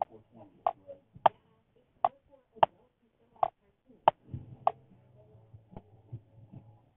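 A series of sharp clicks or taps, unevenly spaced about one or two a second, growing fainter near the end.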